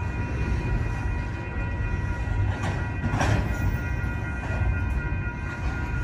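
Double-stack intermodal freight train rolling past: a steady low rumble of wheels on rail, with a steady high-pitched whine over it. A brief louder burst of noise comes about three seconds in.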